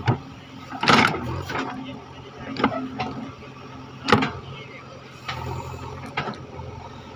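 JCB 3DX backhoe loader's diesel engine running under digging work, with about six sharp knocks or clanks from the working machine, the loudest about a second in and about four seconds in.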